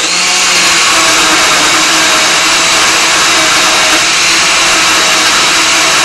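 Waring Margarita Madness countertop blender running at full power with a loud, steady whir as it churns a thick frozen fruit and oat mix.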